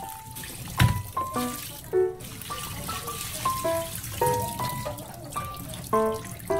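Tap water running and splashing through a perforated metal colander of cooked spaghetti into a steel sink, with a single knock about a second in. Light piano background music plays over it.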